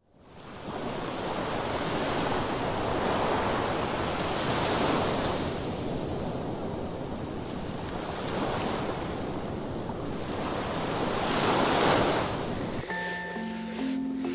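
Ocean waves washing in, a rushing noise that swells and fades about every three to four seconds. Music notes begin near the end.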